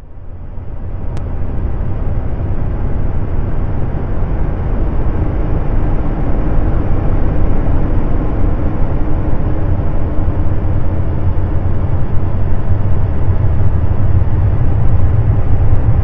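Low, steady rumbling drone with a faint hum in it, offered as the sound of Jupiter's moon Callisto. It fades in from silence over the first couple of seconds and grows slightly louder toward the end.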